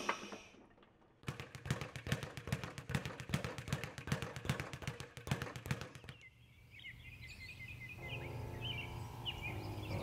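Rapid wooden clacking, about seven knocks a second, as hands and forearms strike the arms of a wooden kung fu training dummy; the knocking stops about six seconds in and birds chirp.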